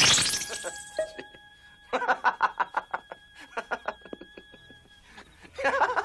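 Rapid, rhythmic laughter in short bursts over a held musical tone, following a loud rush of noise that dies away in the first half-second. A second burst of laughter comes near the end.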